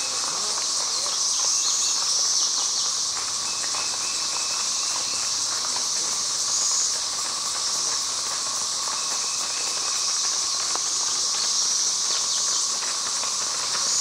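Dense chorus of 13-year periodical cicadas: a steady high-pitched whine with a lower steady hum beneath it. Horse hooves clop on the road now and then.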